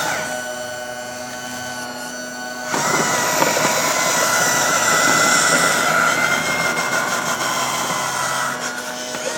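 Radio-controlled model construction machinery running: a steady motor whine made of several tones. It steps up sharply in loudness about three seconds in and eases off a little near the end.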